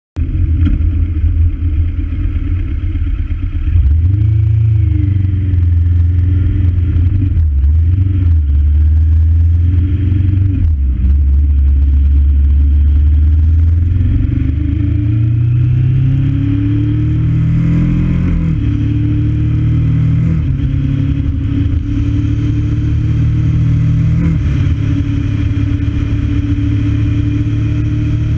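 Onboard sound of a road vehicle's engine pulling away and accelerating, its pitch climbing and dropping back several times as it shifts up through the gears, over a steady road and wind rumble.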